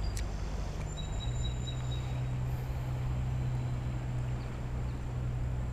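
Steady low rumble of a rain-swollen creek's current rushing past.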